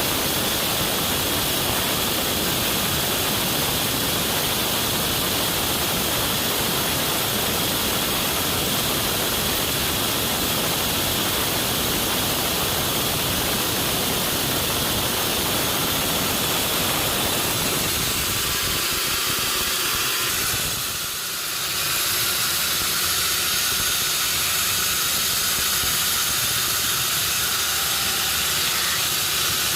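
Sawmill machinery running with a continuous hissing noise. About eighteen seconds in the low rumble falls away, the sound dips briefly a few seconds later, and then a thinner high hiss carries on.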